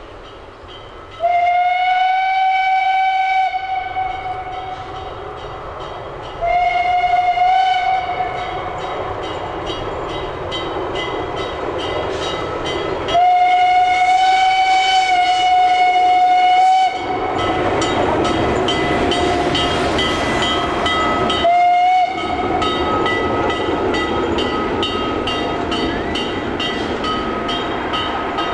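Steam locomotive Speyerbach sounding its whistle four times at a steady pitch: a long blast, a shorter one, a long one, then a brief toot. Under the later blasts its exhaust chuffs in a steady beat that grows louder as it draws near.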